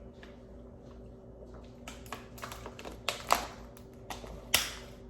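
Someone chewing a bite of a snack roll with its crust, a run of irregular small crunches and mouth clicks, a few sharper ones about three and four and a half seconds in, over a faint steady background hum.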